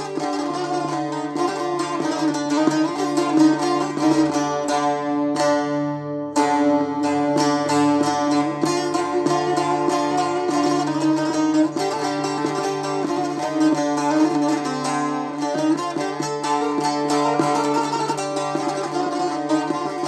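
Bağlama (saz), the Turkish long-necked lute, played solo with fast plucked strokes, a folk melody over steadily ringing low strings.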